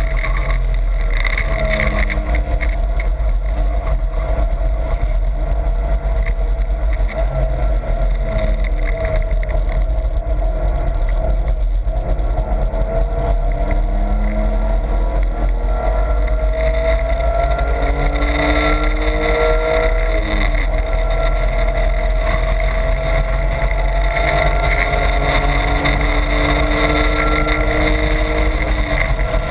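BMW's engine heard from inside the cabin, driven hard on track, its revs climbing and falling again several times with gear changes over a steady low road rumble.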